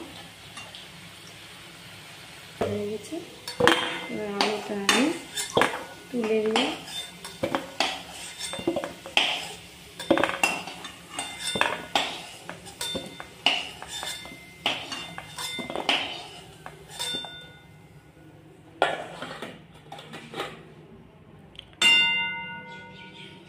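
Metal spatula clanking and scraping against a steel kadai as fried potatoes are lifted out of the oil and laid on a steel plate, in a long run of clinks, some of them ringing. Near the end a single metallic ring, as of the steel plate being knocked.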